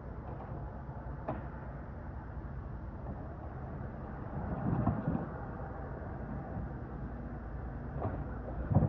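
An engine running steadily, with a few short knocks and thumps, the loudest near the end.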